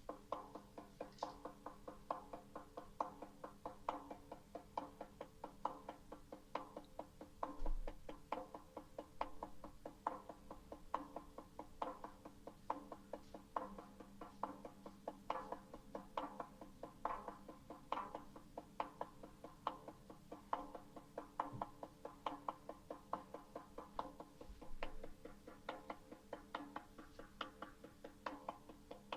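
Shaman's frame drum beaten in a steady rhythm, about three soft strikes a second, quiet in the recording.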